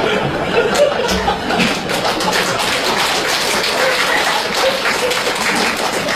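An audience clapping in a sustained round of applause, with some laughter among it.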